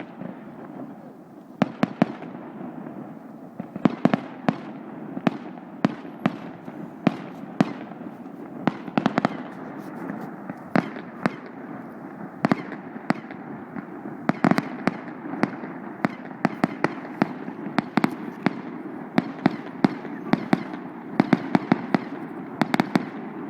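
Fireworks display: dozens of sharp bangs and cracks from bursting shells at irregular intervals, sometimes several in quick succession, over a steady low background noise.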